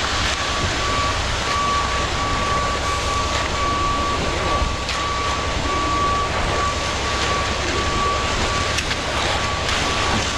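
A ready-mix concrete truck's backup alarm beeping at an even pace as the truck reverses, over the steady low running of its diesel engine.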